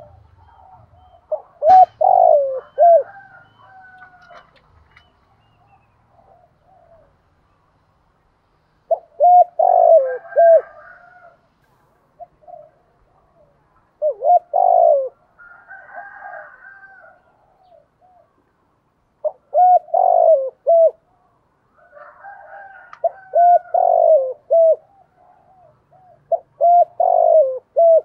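Spotted dove cooing: about six phrases of a few short low notes each, repeated every four to five seconds, with fainter higher bird calls between some phrases.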